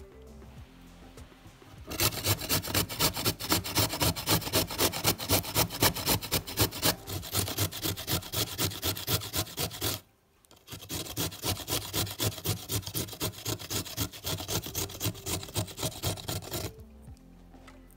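Carrot being grated on a metal box grater: quick rasping strokes, about four a second, starting about two seconds in, breaking off briefly midway and stopping shortly before the end.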